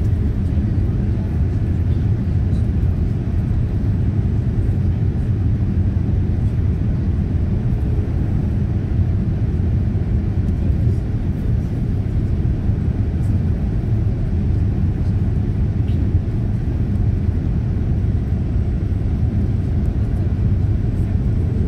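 Steady cabin noise of a Boeing 787-9 airliner in flight, heard inside the cabin: an even, low rumble of engine and airflow noise with no change in level.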